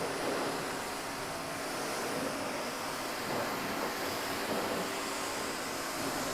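Pressure washer spraying water through a wide 40-degree nozzle onto a motorcycle: a steady hiss of spray over the faint hum of the washer's motor.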